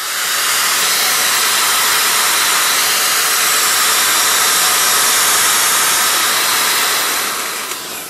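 Skil electric drill running steadily as it bores a hole into a wall. It is loud, and it trails off near the end as the drill stops.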